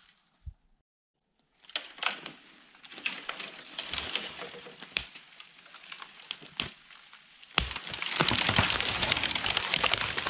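Dry wood and branches cracking and snapping: scattered sharp cracks that thicken into dense, loud crackling from about eight seconds in.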